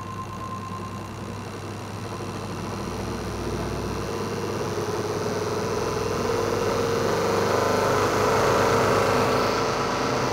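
Distributor testing machine's motor spinning a Ferrari twin-points distributor, getting steadily louder as its speed is wound up to test the centrifugal advance, then easing slightly near the end.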